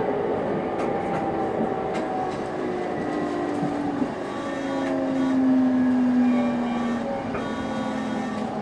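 Onboard running sound of a JR East 701 series electric train: the GTO-thyristor VVVF inverter and traction motors hum in steady tones over wheel and rail rumble. The main tone steps down in pitch about halfway through.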